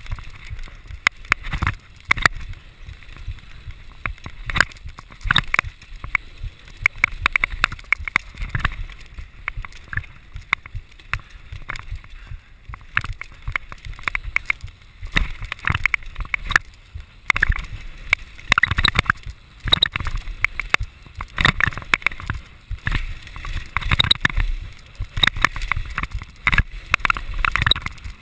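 Mountain bike rattling down a rough dirt trail at speed: a steady run of clanks and knocks from the chain and frame over bumps, over tyre noise on dirt and wind rumbling on the microphone.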